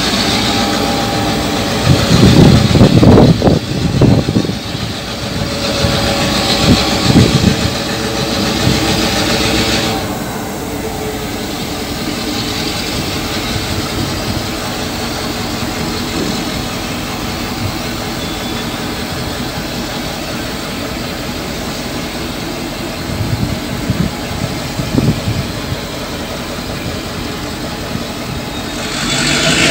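A loaded rail train of flat wagons carrying long rails rolls slowly past, its wheels and loads clanking loudly a few seconds in and again around seven seconds, with quieter clunks later. Under it runs the steady drone of the hauling diesel locomotive.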